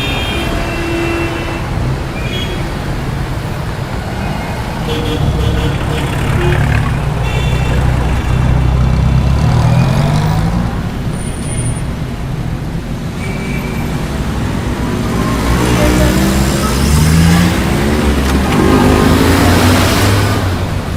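Steady city road traffic heard from the roadside, with cars and other vehicles passing close by. Their engines rise in pitch as they speed past, and short horn toots sound now and then.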